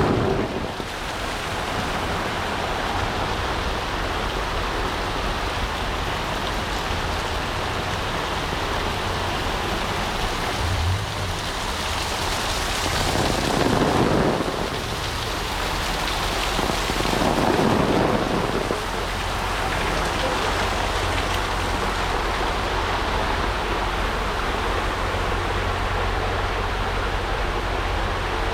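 Heavy rain pouring steadily, with two louder swells of noise about halfway through.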